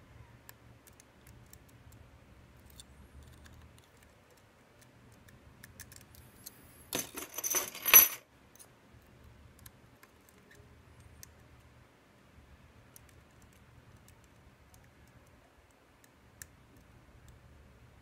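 Lock pick and tension wrench working the wafers of a Miwa U9 wafer/lever hybrid lock: faint scattered clicks. About seven seconds in comes a brief, louder metallic jingle that ends in a sharp clink.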